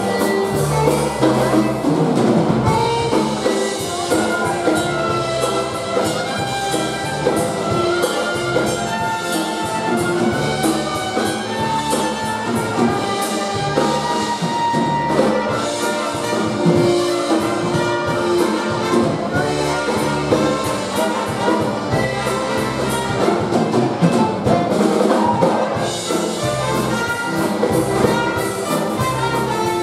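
Live polka band playing a dance tune, brass leading the melody over a steady bass and drum beat.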